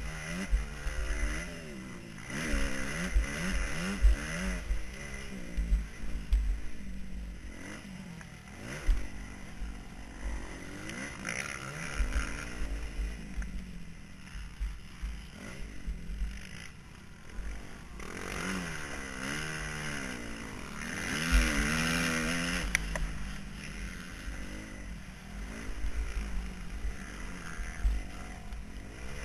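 Motocross bike engine revving hard and dropping off again and again as the rider accelerates and shifts around a dirt track, heard close up. Wind rumbles across the microphone, with occasional knocks from bumps.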